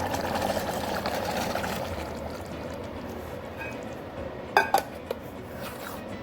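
Boiled green gram being tipped into a masala gravy in a pan and stirred, a wet sloshing that fades after about two seconds. A little past four seconds in, a metal spoon clinks sharply twice against the pan.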